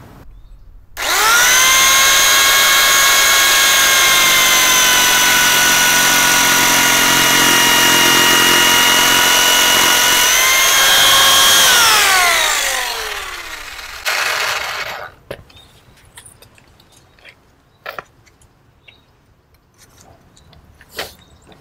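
Parkside PSTK 800 C3 800 W jigsaw starting about a second in and cutting through a wooden board with its pendulum (orbital) blade action on for a faster, rougher cut, running loud and steady for about ten seconds. It is then switched off and winds down with a falling whine, followed by a few light knocks.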